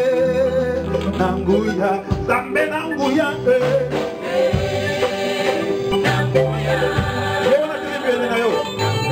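Gospel praise band playing live: several voices singing together over keyboard, bass and drums.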